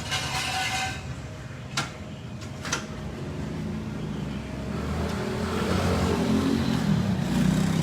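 Suzuki Samurai engine running and revving, growing steadily louder through the second half. A short hiss and two sharp clicks come before it.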